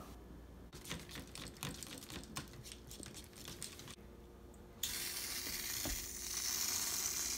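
A run of small scattered clicks, then about five seconds in an aerosol can of whipped cream starts spraying with a steady hiss.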